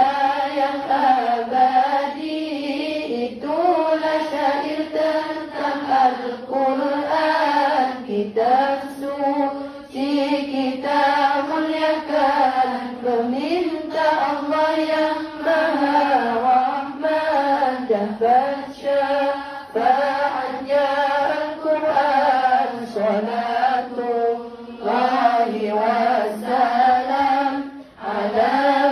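A woman singing sholawat, an Islamic devotional song in praise of the Prophet, into a microphone: a chanted melody in long, ornamented phrases with short breaths between them.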